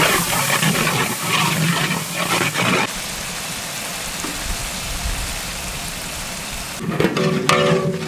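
Onion, tomato, chilli and cashew masala sizzling in hot ghee in a large cooking pot: a steady frying hiss, with knocking from stirring in the first three seconds.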